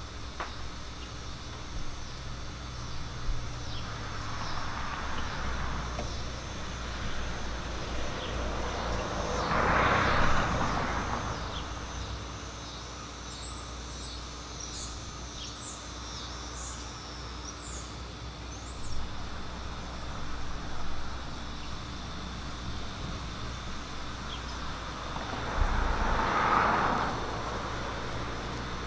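Outdoor ambience: wind rumbling on the microphone, with vehicles passing three times (about five, ten and twenty-six seconds in), each swelling and fading over a couple of seconds; the pass about ten seconds in is the loudest. Small birds chirp faintly in the background midway through.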